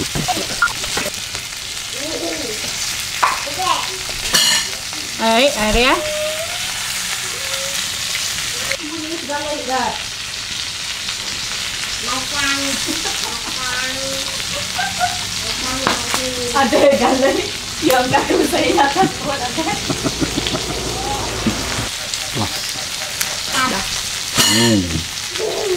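Food sizzling and frying in a pan over a wood fire while it is stirred: a steady hiss, with short pitched sounds scattered over it.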